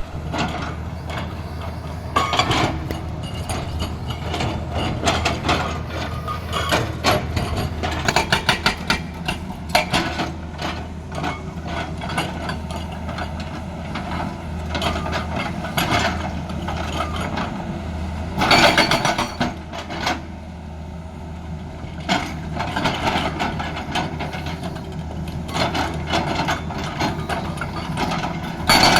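Tata Hitachi excavator's diesel engine running steadily, with repeated bursts of rapid hammering from its hydraulic breaker.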